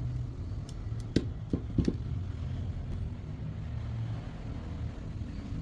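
About five quick, sharp clicks and knocks from a new part being fitted into a bottled water dispenser, close together about a second in, over a steady low hum.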